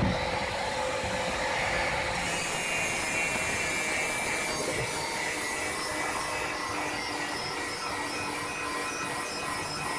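Steady abrasive rubbing of sanding or filing work, with a faint steady hum underneath.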